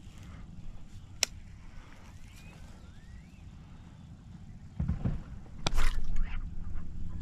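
Handling noises from fishing tackle and a bass boat: one sharp click about a second in, then heavier thumps and crackly knocks from about five seconds in, over a low steady rumble.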